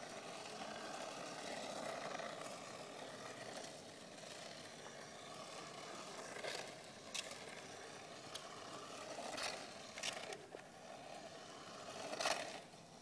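Toy remote-control car's small electric motor whirring as it drives on asphalt, with several short sharp knocks, the loudest one near the end.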